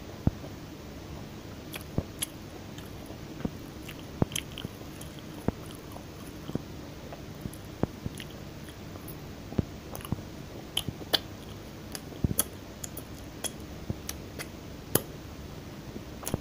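A person chewing and biting crunchy food close to the microphone, with sharp, irregular crunches several times a second.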